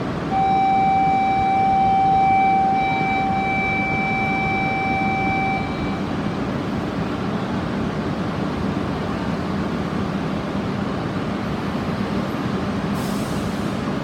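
A steady electronic tone sounds for about five seconds over the low hum and rumble of a Shinkansen train standing at the platform.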